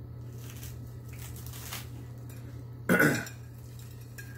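A man chewing a chicken sandwich layered with potato chips, with faint crunching, then one short loud cough about three seconds in as the hot sauce burns.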